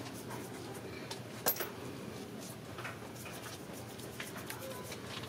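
Scattered light clicks and taps of hand tools and engine parts being handled, with one sharper click about a second and a half in, over a low steady background hum.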